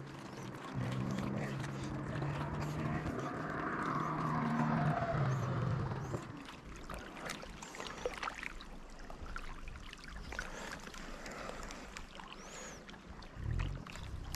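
An engine passes by: a steady hum comes in about a second in, its pitch falls as it goes past, and it fades by about six seconds. Scattered small clicks and knocks follow.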